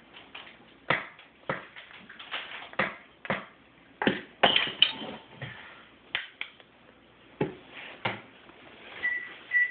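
A toddler banging a stick on upturned kitchen bowls, a red plastic one and stainless steel ones, in irregular single knocks, with a short metallic ring about halfway. A few short electronic beeps near the end.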